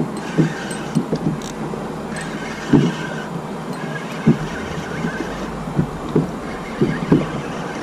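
Small waves slapping against a plastic kayak hull in irregular low thumps, about one or two a second, over a steady rush of wind on the microphone.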